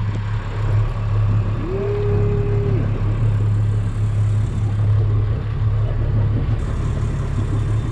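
Fishing boat's engine running with a steady low hum, with a short steady tone about two seconds in.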